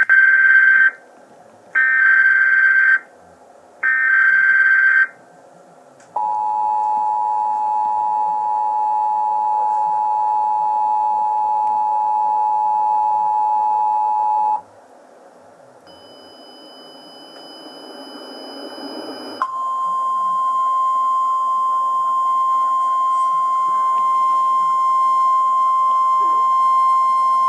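Emergency Alert System tones: three harsh one-second bursts of header data screech, then the two-tone attention signal held steady for about eight seconds. It cuts off into a few seconds of rising hiss, and then a single steady weather-radio alert tone begins.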